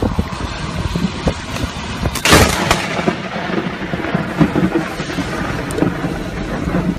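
A loud, sharp thunderclap about two seconds in, with a second shorter crack right after, over a steady rushing noise with scattered knocks.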